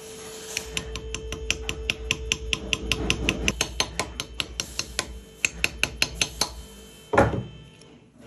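Light, rapid hammer taps on a press tool, about five a second, gently driving a ring into its seat on a BMW N47 diesel engine during assembly. One heavier knock comes near the end.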